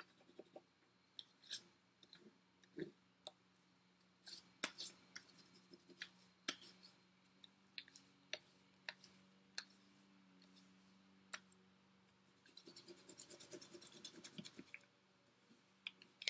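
White wax crayon rubbed over paper laid on leaves: faint, irregular scratching strokes with sharp ticks, and a run of quicker strokes about two-thirds of the way through. A faint steady low hum sits underneath.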